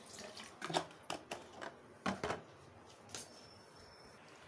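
A few scattered light clicks and knocks of handling, the loudest cluster about two seconds in, with no motor running.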